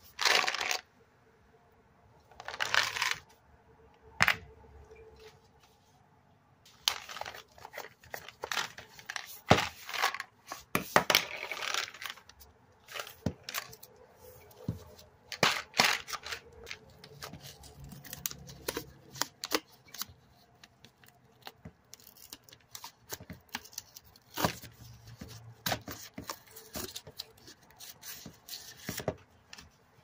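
Tearing and crinkling as a plastic supplement bottle is opened by hand: the shrink band is ripped off and the paper inner seal under the cap is punctured with scissors and torn away, in many short irregular bursts with the rustle of a plastic glove.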